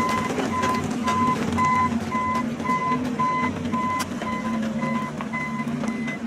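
Vehicle reversing alarm beeping steadily, about two beeps a second, over a low engine hum, with scattered knocks.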